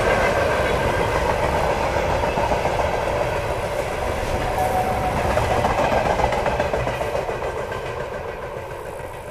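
Container train's flatcars rolling past, their wheels running steadily on the rails. The sound fades away over the last couple of seconds as the tail of the train goes by.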